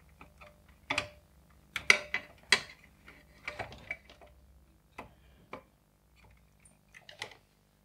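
Small screwdriver working a screw terminal on a metal-halide lamp ignitor's terminal block, loosening the screw to free a wire: a string of about ten sharp clicks and ticks at irregular intervals.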